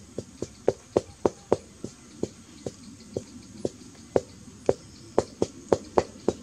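A quick, uneven series of sharp knocks, about three or four a second, each with a short ring.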